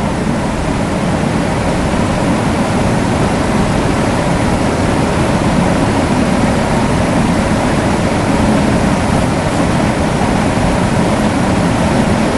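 Electric fan running steadily at one speed: a loud, even rush of air with a faint hum beneath it.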